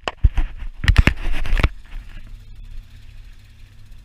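A run of sharp knocks and bumps as the camera is handled and moved, stopping abruptly just under two seconds in. After that, a boat engine hums steadily and low.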